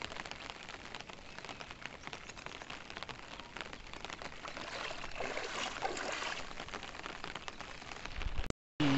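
Heavy monsoon rain pattering on floodwater and flooded fields: a dense, steady hiss of drops. The sound cuts out for a moment near the end.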